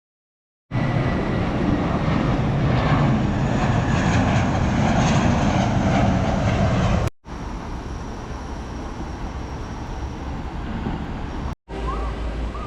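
Steady rushing vehicle noise in three abruptly cut segments: a loud stretch of about six seconds, then a quieter one, then a third near the end.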